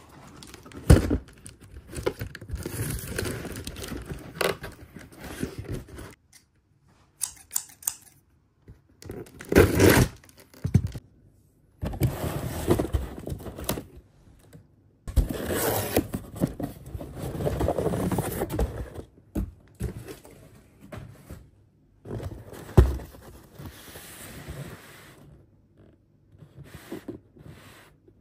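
A cardboard shipping box being torn open and handled: irregular bursts of ripping, scraping and rustling with short pauses between them, and a few sharp knocks.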